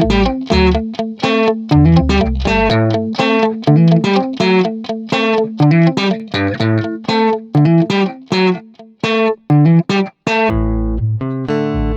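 Background music: a guitar picking a quick run of plucked notes, with bass notes coming and going.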